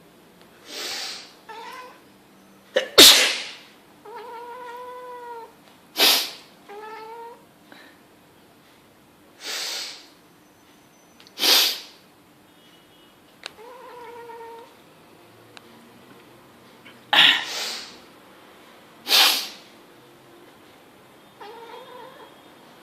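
A person sneezing about seven times, and a cat answering several of the sneezes with short meows that rise and fall in pitch.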